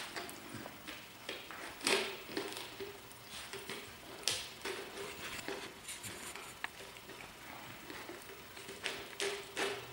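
Malamute puppy licking and gnawing at a plastic peanut butter jar held under its paw, with irregular wet licking, plastic scraping and clicking, and a few sharper knocks as the jar shifts on the concrete floor.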